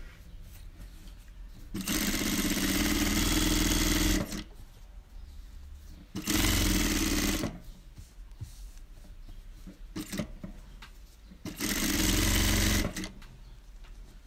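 Electric sewing machine stitching through layered cotton fabric in three runs: about two and a half seconds, then about a second, then about a second and a half, stopping in between while the fabric is repositioned.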